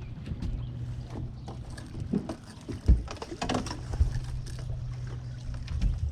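Boat motor running steadily at low trolling speed, with scattered knocks and rattles from handling in the boat; the sharpest knock comes about three seconds in.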